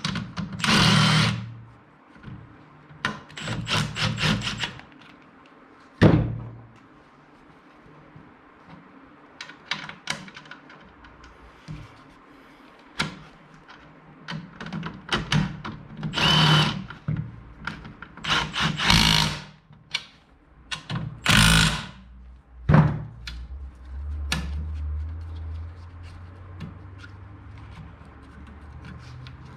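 Car seat parts being fitted back together with tools: a series of short rasping bursts about a second long, sharp knocks about six seconds in and again near 23 seconds, and a low steady hum through the last few seconds.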